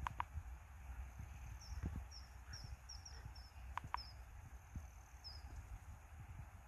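Small bird chirping outdoors: a run of short, high chirps. A pair of quick clicks comes right at the start and again about four seconds in, over a low rumble.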